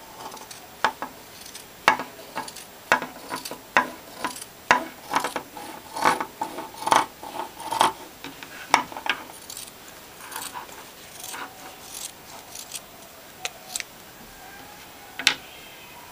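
Scissors cutting through a knit sweater: a run of sharp snips of the blades, about one or two a second for the first nine seconds, then sparser, with one more loud snip near the end.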